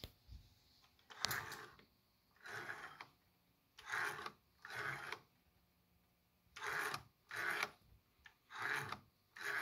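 A series of short rasping buzzes, roughly one a second, as power is switched on and off to a prewar American Flyer O gauge locomotive whose E-unit reversing switch is sticking and has not yet clicked in.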